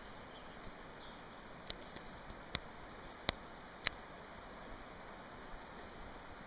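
Four short, sharp clicks spaced a little under a second apart, over a faint steady hiss.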